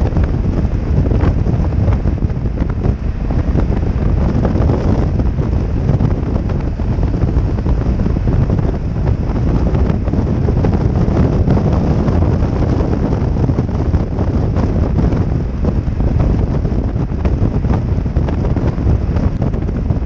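Steady, heavy wind buffeting on the microphone of a helmet-mounted camera on a BMW 1200GS Adventure motorcycle at highway speed. Engine and road noise are blended into the rush.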